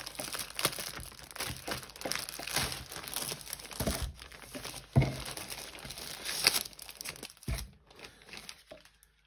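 Clear plastic packaging crinkling and rustling as plastic-sleeved diamond-painting kits are slid out of a Ziploc bag, with a few thumps as the packs are laid on the desk. The crinkling fades out near the end.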